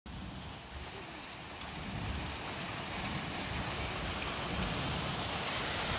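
Torrential rain pouring down onto a wooden deck and garden, a dense steady hiss that grows gradually louder.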